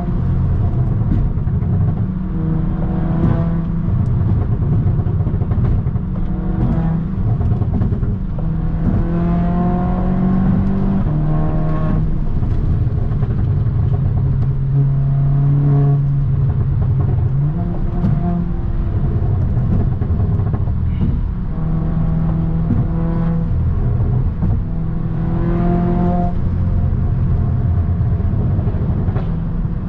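2017 Audi S3's turbocharged four-cylinder engine and exhaust under repeated acceleration: the engine note climbs in pitch, then drops back at each gear change, several times over. A few sharp pops come from the exhaust.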